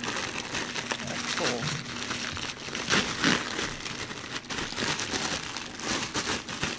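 Clear plastic packaging bag crinkling and rustling as a red iPad mini case is pulled out of it, in an irregular run of crackles.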